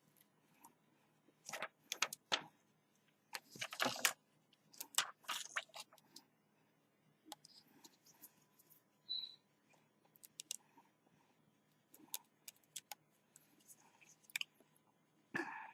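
Small handling noises of hand work on a phone: scattered clicks and crinkly rustles, bunched around two, four and five seconds in and again just before the end.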